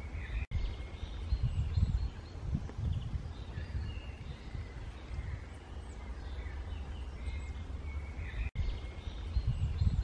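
Outdoor ambience: a steady low rumble with faint, short chirps of small birds scattered through it. The sound drops out for an instant twice, once just after the start and once near the end.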